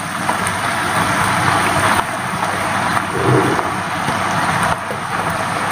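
Steady sizzling hiss from a pan of frying vegetables, chicken and shrimp as a heap of soaked glass noodles is added to it.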